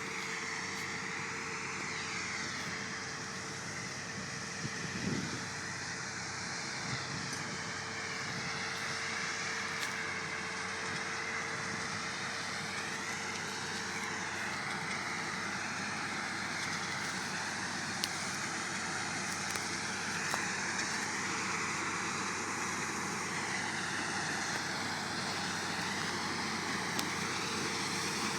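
Combine harvester running steadily at work in a crop, a dense mechanical rush with a steady hum that fades out partway through.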